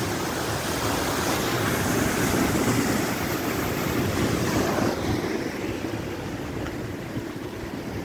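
Rough sea: surf surging and breaking, swelling to a peak a couple of seconds in and dying away after about five seconds.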